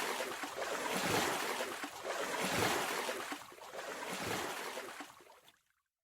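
Water sound effect: waves washing, swelling and ebbing several times before fading out about five and a half seconds in.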